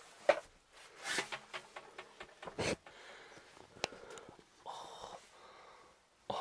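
A handful of separate knocks and scuffs from someone moving through the debris-strewn cabin of a derelict aircraft, with breathing close to the microphone.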